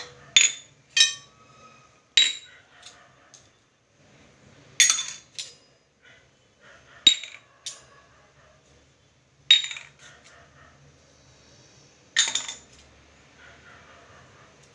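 A stainless steel spoon and small steel bowls clink against a steel mixing bowl as spice powders are tipped and scraped in. There are about ten sharp metallic clinks, each ringing briefly, spaced irregularly.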